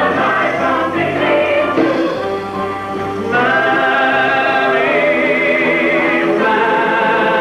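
A group of singers with band accompaniment performing a song in a live stage show. About three seconds in they move onto long held notes sung with vibrato.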